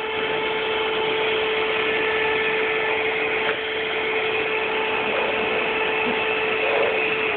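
Vacuum cleaner running steadily, its motor giving a constant whine over the rush of air; one sharp click about halfway through.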